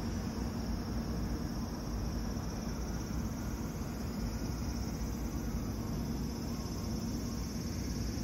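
Steady dusk ambience: insects trilling continuously, high-pitched, over a constant low hum and rumble.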